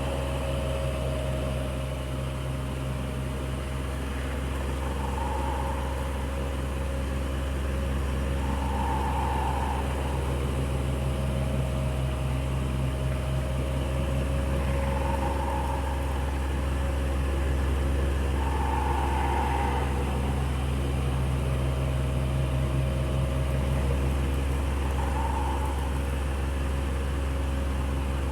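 Electric fan running steadily: a constant motor hum and airflow, with a soft swell that comes back every four to six seconds.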